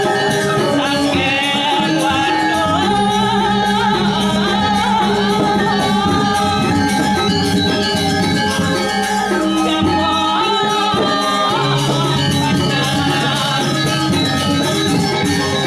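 Balinese gamelan playing dance music: bronze metallophones ringing a busy melody over a fast cymbal clatter, with long low gong tones sustained for several seconds at a time.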